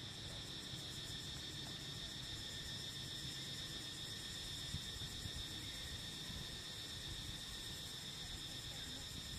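Steady insect chorus, several shrill pitches held without a break.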